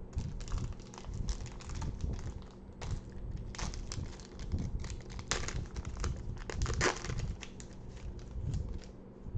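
Pokémon trading card booster pack wrapper crinkling and tearing as it is opened by hand, a dense run of irregular crackles with the sharpest ones in the middle.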